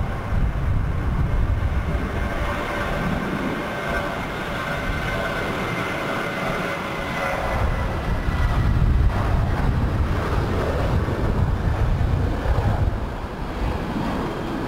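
Airbus A320 jet engines at takeoff thrust as the airliner accelerates down the runway, lifts off and climbs away: a steady deep rumble, with a high whine over its first half.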